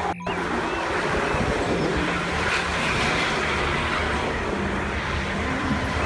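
Steady road noise from a convoy of police buses driving past on a highway: engines and tyres in an even rush.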